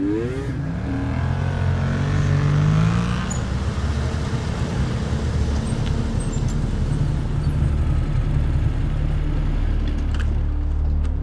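Motorcycle engines pulling up with rising revs over the first few seconds, then idling steadily.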